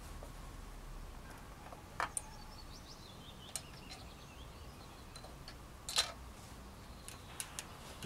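A few small clicks and knocks from handling a scoped bolt-action rifle while aiming prone, the loudest about six seconds in, over quiet open-air ambience; no shot is fired. A faint bird song runs down in pitch between about two and four seconds in.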